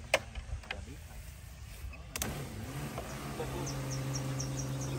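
Spray pump of a DJI Agras T30 agricultural drone starting with a click about two seconds in, then running with a steady electric hum while the nozzles mist spray during a ground test of the spray line; it cuts off at the very end. A sharp click sounds just after the start, and insects tick faintly behind.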